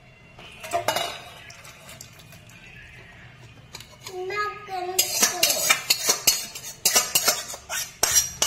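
Metal utensil scraping and clinking against a metal wok and a steel bowl as thick fish curry is poured and scraped out. A few clinks about a second in, then a quick, busy run of sharp clinks from about five seconds in.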